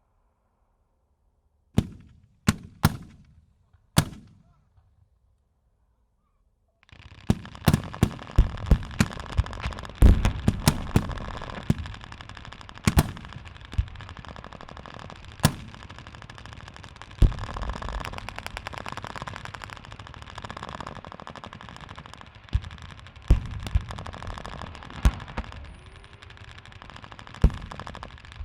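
Battlefield gunfire sound effects. About two seconds in come four single shots, each trailing off in an echo. After a few seconds of silence a dense battle mix starts: rapid bursts and scattered loud shots over a steady din.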